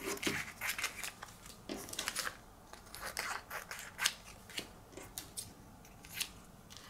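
Scissors making a series of short, irregular snips, cutting transfer tape with vinyl pieces on it into separate pieces.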